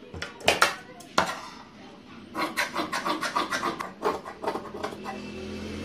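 Large tailor's shears cutting through fabric on a table. There are a few separate clicks first, then from about two seconds in a quick run of snips, about five a second.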